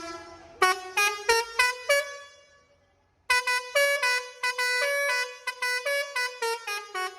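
Indonesian bus telolet multi-tone air horn, sounding through roof-mounted trumpets, playing a tune of quick staccato notes. It stops for under a second about two and a half seconds in, then resumes with a mix of short notes and longer held ones.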